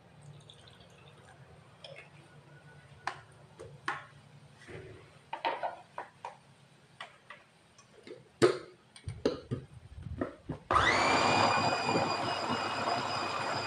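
Scattered knocks and clinks as the lid and motor head are fitted onto a stainless steel electric food chopper, then about eleven seconds in its motor switches on and runs with a steady high whine, grinding fish, seasonings, flour and water into meatball paste.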